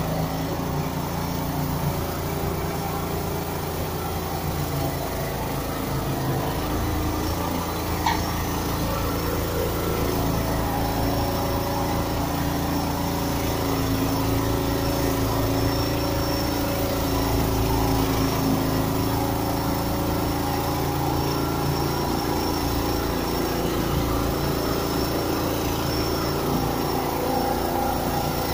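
Straw bedding machine (pailleuse) running steadily as it spreads straw, its engine and mechanism going without a break. One sharp click about eight seconds in.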